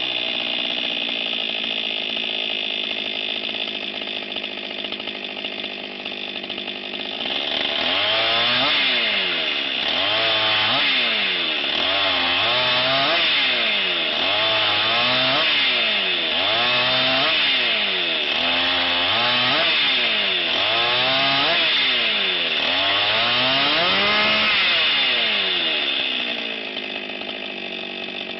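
Petrol chainsaw idling steadily, then from about eight seconds in revving up and dropping in pitch over and over, about every second and a half, as it cuts through firewood. Near the end it settles back to idle.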